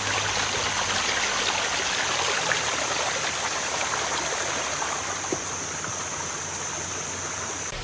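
Steady rush of running water, like a stream, with many small splashy ticks and a steady high whine over it; it cuts off abruptly near the end.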